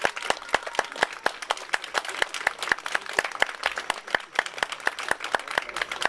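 A small crowd of spectators clapping, with individual hand claps coming through sharply and unevenly rather than merging into a roar.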